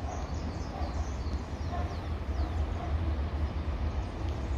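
Low, steady rumble of a diesel-electric freight locomotive still some way off and approaching, with birds chirping over it.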